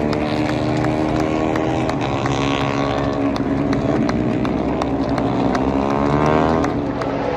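A pack of Moto3 race bikes, with 250 cc single-cylinder four-stroke engines, passing at high revs, several engine notes overlapping. One pitch rises near the end as a bike accelerates out of the corner.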